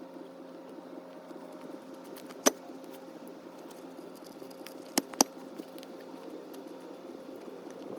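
A steady low mechanical hum, like an engine running nearby, with three sharp wooden knocks: one about two and a half seconds in and two in quick succession about halfway through, as firewood pieces are handled and set down.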